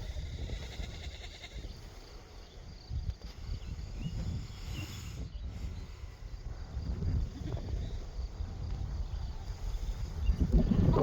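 Farm animal calling, bleat-like, over a steady low rumble, with a louder, rough noisy call starting near the end.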